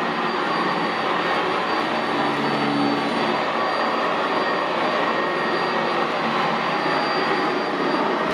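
Sanitaire SC679J commercial upright vacuum running steadily over carpet, a thin high whine over the rush of airflow and brush, with a lower hum rising in briefly about two seconds in.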